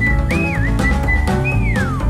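Intro music: a whistled melody that slides up and down in pitch, over drums and a bass line.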